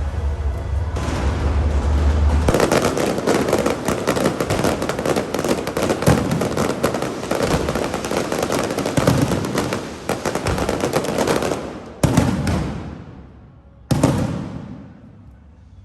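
Aerial fireworks going off: a dense, rapid crackle of many bursts, then two single loud bangs about two seconds apart near the end, each fading away in a long echo.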